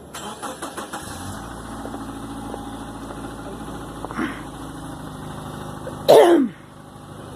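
A car engine started in the cold: the starter cranks with a quick run of clicks for about a second, then the engine catches and settles into a steady idle. Near the end a short, loud call from a voice, falling in pitch, rises over the idle.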